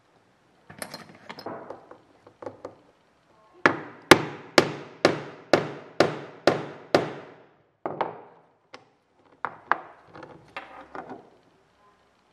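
Hammer striking a metal setter to set an eyelet through a small leather tab: a few light taps, then a run of about eight sharp blows, two a second, then a few scattered blows near the end.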